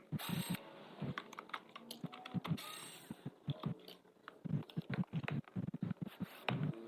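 Irregular clicks, taps and knocks of tools and housing parts being handled as a pressure washer is taken apart.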